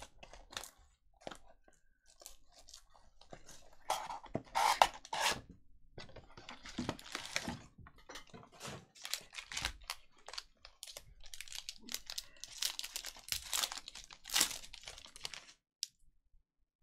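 Plastic wrapping on a sealed box of trading cards and its packs being torn open and crinkled. It comes in irregular bursts of tearing and rustling mixed with clicks and light knocks.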